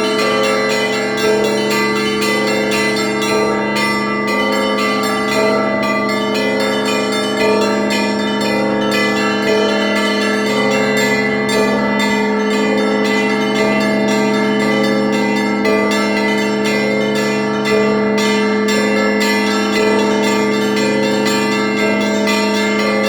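Russian Orthodox church bells rung by a single bell-ringer: rapid strikes of the small bells over regular strokes of the larger bells, in a rhythmic pattern that repeats about every two seconds, with the bells ringing on without a break.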